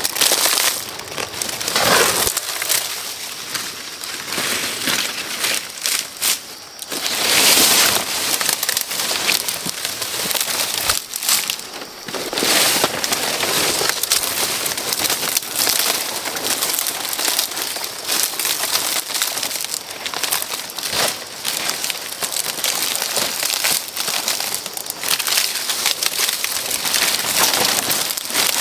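Dry, loose material rustling, crunching and crackling as it is handled, a dense run of small irregular crackles with louder spells now and then.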